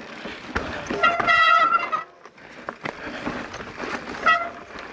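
Mountain bike disc brakes squealing: one steady high-pitched squeal of about a second, then a shorter one near the end, over the rattle and knocks of the bike on rough trail.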